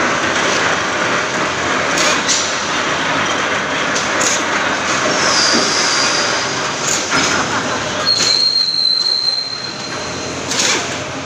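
Loud factory-floor din: a steady rush of machinery noise with scattered metal knocks and clatter. A high, steady whine sounds for about a second from about five seconds in, and again for about two seconds from about eight seconds in.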